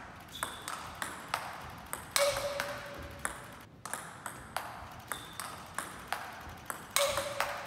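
Table tennis rally: the ball clicks off the paddles and bounces on the table at about two to three hits a second as a defender plays backhand chops. There is a louder hit about two seconds in and again near the end, each followed by a brief ringing tone.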